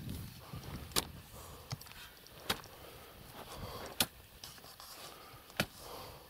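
Tall grass and weeds rustling as someone walks through it, with a few sharp clicks every second or so.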